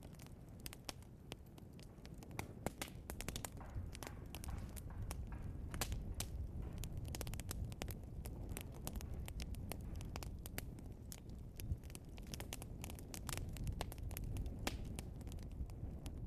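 Burning logs crackling and popping in a fireplace: many sharp snaps over a low steady rumble.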